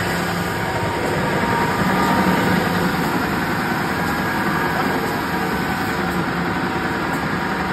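Wide belt sander running steadily as a test panel is fed through, with a slight swell in loudness about two seconds in.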